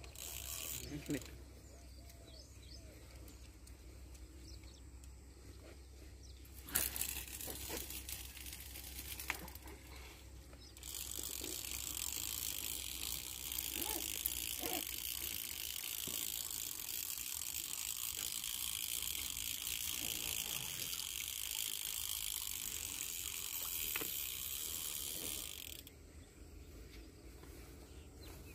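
Spinning reel cranked steadily for about fifteen seconds, a fast even whirr as it winds in the line and spod feeder after a cast. There is a sharp knock about seven seconds in.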